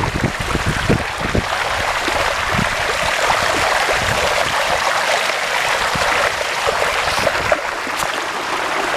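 Thigh-deep floodwater splashing and rushing steadily as it is waded through, with a few low knocks in the first second and a half.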